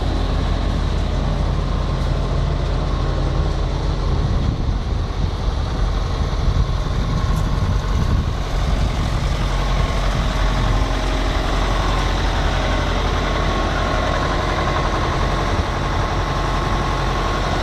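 Iveco 65.10 truck's 4,570 cc diesel engine idling steadily.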